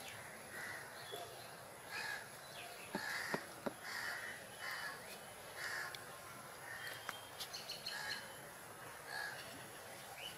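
Crows cawing repeatedly, short calls coming roughly once a second, with a few light clicks of metal spoons against bowls.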